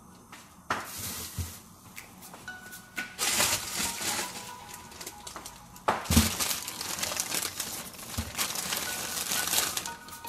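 Plastic bag of potatoes rustling and crinkling as it is handled and potatoes are taken out, with a couple of dull knocks.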